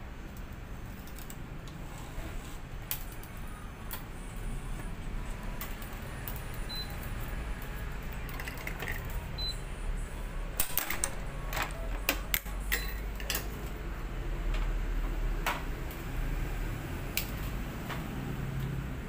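Clicks and clacks from a racket stringing machine's string clamps and tension-head gripper as tennis string is pulled through, gripped and tensioned. There is a cluster of sharp clicks about halfway through and two brief high beeps, over a low steady hum.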